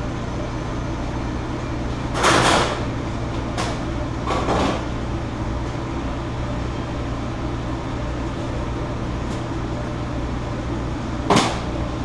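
Steady hum and rush of a commercial kitchen's exhaust hood ventilation, broken by a few short clatters and knocks of kitchen work: the loudest about two seconds in and a sharp one near the end.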